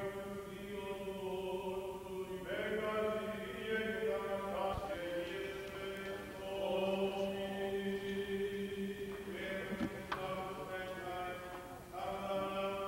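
A man chanting Greek Orthodox liturgical prayers of the baptism service, holding long notes in slow phrases with short breaks between them.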